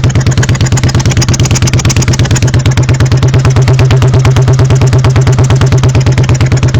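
Honda Shadow 1100 V-twin idling at the exhaust pipes, with a steady, evenly pulsing beat. The rear cylinder is misfiring, and the owner says its pipe sounds like it is sucking in while the other blows out.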